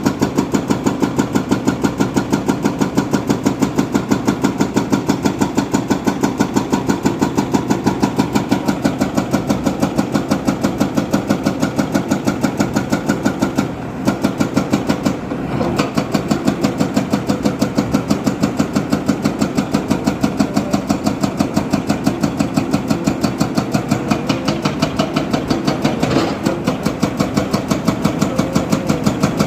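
Diesel engine of a construction machine or tractor running steadily with an even, rapid pulse, briefly dipping twice about halfway through.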